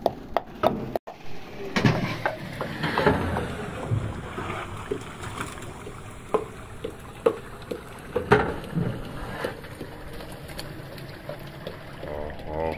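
A long-handled metal ladle stirring thick meat curry in a large aluminium pot, with irregular knocks and scrapes of the ladle against the pot. In the first second, a wooden pestle pounds garlic in a clay mortar.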